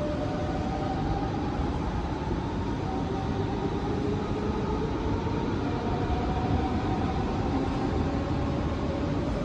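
A German electric multiple unit of the DB class 424/425/426 family running on the rails: a steady rumble with faint whining tones that shift in pitch.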